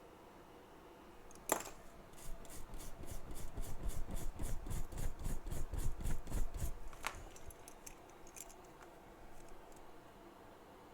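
A quick, even run of scraping strokes, about four to five a second for some five seconds, with a sharp click just before and just after.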